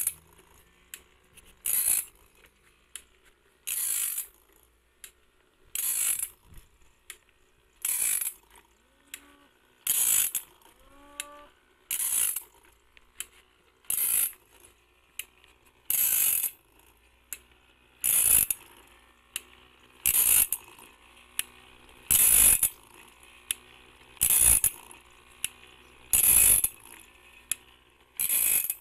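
Automatic bandsaw blade sharpener working through the blade tooth by tooth: a short grinding burst about every two seconds as the wheel takes each tooth, with lighter mechanical clicks in between.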